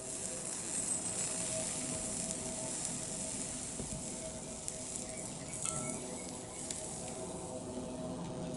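Hot soldering iron tip held on a stained-glass frame's corner joint, sizzling steadily as the flux and solder at the joint heat, with a few small crackles.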